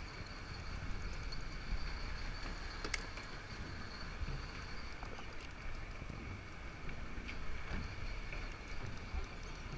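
Fishing boat at sea with its engine running steadily, a constant hum with a faint high whine, and wind rumbling on the microphone. A sharp click comes about three seconds in.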